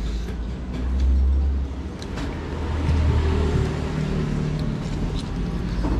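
Low rumble of a vehicle engine that swells and fades twice, with a few light clinks of cutlery.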